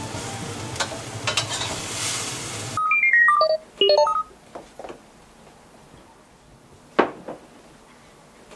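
Vegetables sizzling in a wok over a gas flame while a metal spatula scrapes and clicks through them, cutting off abruptly about three seconds in. A quick run of bright chime notes stepping down follows, then a second run stepping up. After that it is quiet except for a few light clicks of chopsticks on dishes.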